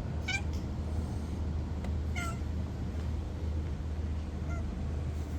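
A cat meowing three times, short calls about two seconds apart, over a steady low hum.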